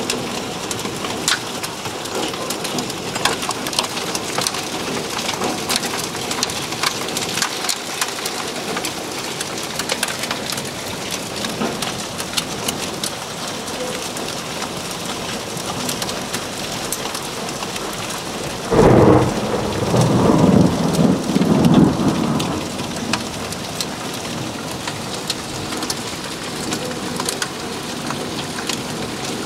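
Heavy rain mixed with hail pouring down, with many sharp ticks of stones striking. About two-thirds of the way in, a loud thunder clap breaks out and rumbles for about three seconds.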